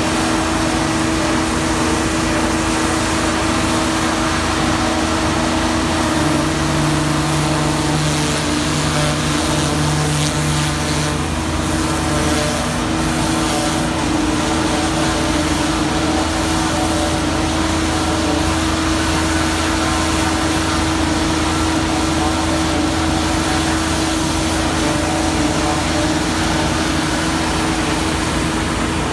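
Truck-mounted sewer vacuum and high-pressure water jetting unit running, a loud constant engine and blower drone with a steady hum. A lower tone joins it for about five seconds, starting about six seconds in.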